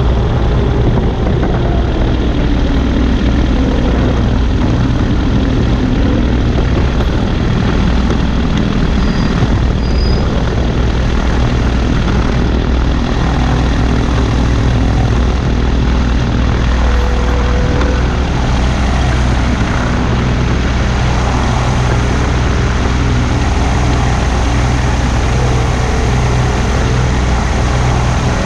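Weight-shift trike's engine and pusher propeller running steadily at low power while the trike taxis on the runway, a constant low drone with a wash of noise over it.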